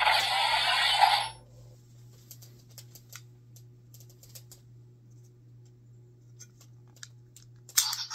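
Kamen Rider Gaim Orange Lockseed toy: a loud, noisy electronic sound effect for about a second at the start, then small plastic clicks as the toy is handled, and another loud electronic sound starting near the end.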